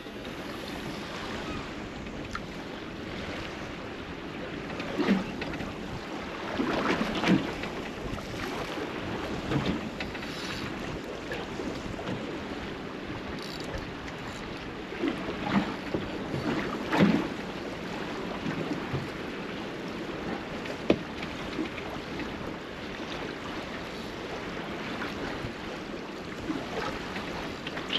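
Water lapping against a small boat's hull at sea, with wind on the microphone and a few louder knocks scattered through.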